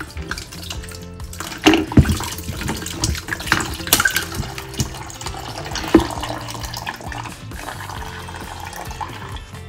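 Water running and trickling from a drained cold-water PEX supply stub into a plastic pitcher. A few sharp knocks and clicks come from handling the blue plastic fitting and the jug.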